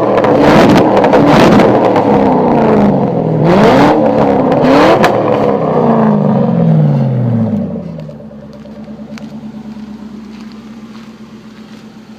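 Lincoln Mark VIII's 4.6-litre DOHC V8 with an open, straight-through exhaust, revved in several quick blips. The revs then fall away and it settles to a steady idle about eight seconds in.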